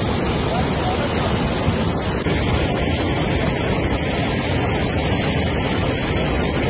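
Steady, loud rushing of water from a flash flood.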